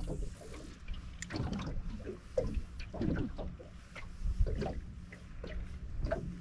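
Water lapping and slapping against an aluminium boat hull, in irregular low knocks.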